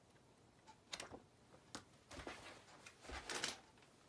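Faint handling sounds: a couple of light taps about a second in, then rustling and a soft thud as goods are moved about in a cardboard box.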